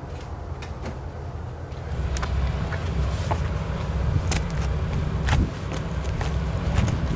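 Low, steady rumble of a diesel locomotive hauling a train through the notch, growing louder about two seconds in, with scattered sharp clicks over it.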